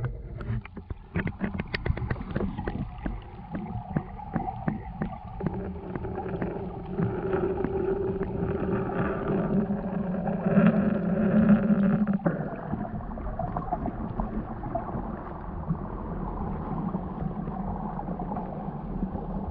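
Water heard through a submerged GoPro Hero7 camera: a muffled, low churning sound, with a run of clicks and knocks against the housing in the first few seconds.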